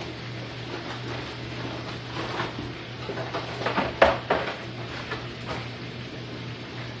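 Clatter and crinkle of a foil-lined metal baking pan with a wire rack being handled on the stovetop, a run of knocks with the sharpest one about four seconds in, over a steady low hum.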